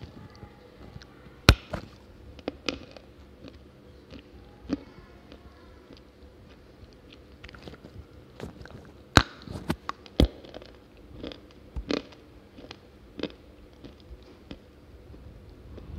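Dry multani mitti (fuller's earth clay) bitten and chewed close to the microphone: several sharp cracks as chunks snap off, with softer crunching between them.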